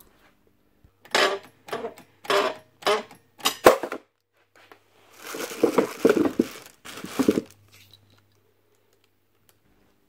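A few short scuffs with a sharp knock about four seconds in, then a plastic bag crinkling and rustling for a couple of seconds as a plastic parts bin is pulled out and handled.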